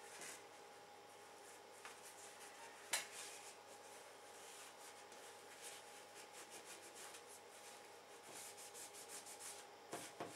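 Paper tissue rubbing over a GTX 780 graphics card's GPU chip, wiping off old thermal grease: faint, soft, repeated rubbing strokes. There is one sharp tap about three seconds in.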